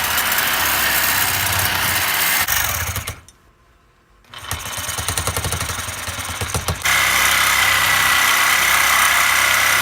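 Electric power tool running on the shift-knob blank in loud spells. It stops for about a second after three seconds, then runs rough and pulsing, then steady with a constant high whine from about seven seconds in.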